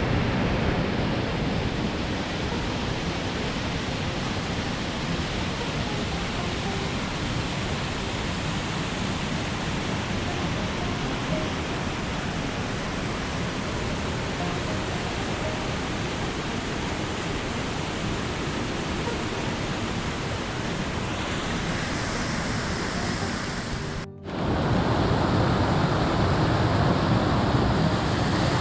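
Steady rushing of a mountain creek and waterfall. Near the end it cuts out for a moment and returns slightly louder and brighter.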